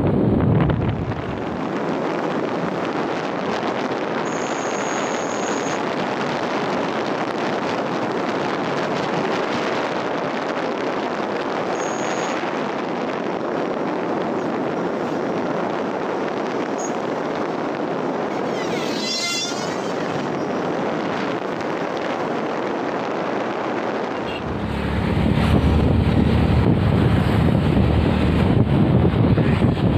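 Wind rushing over the microphone and road noise from a moving motorcycle, steady for most of the time; heavier low wind buffeting sets in about 24 seconds in. A short high warbling sound is heard about 19 seconds in.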